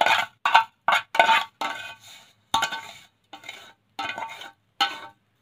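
Steel spoon clinking and scraping against a dish while fried vermicelli is spread out, about nine sharp metallic clinks, each ringing briefly.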